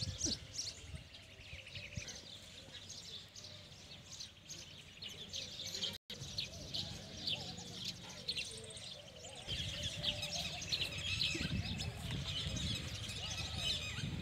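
Small birds chirping: a dense run of short, high calls, cutting out for an instant about six seconds in.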